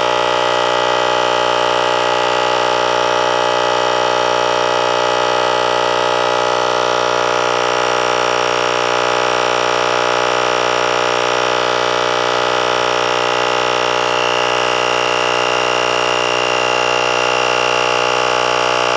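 ASMAX T10 portable tyre inflator's compressor running steadily, pumping air into a camper van tyre to bring it up from about 5.4 to a preset 5.5 bar.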